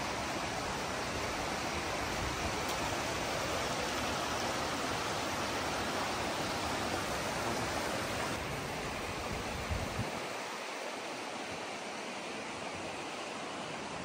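Steady rush of a mountain river flowing over boulders. Its deep rumble drops away about ten seconds in, just after a couple of soft knocks.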